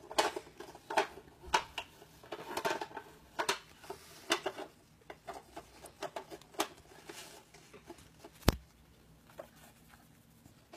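Corgi working a plastic puzzle dog toy: irregular clicks and knocks of hard toy pieces being shifted and knocked about, with one sharper, louder click about eight and a half seconds in.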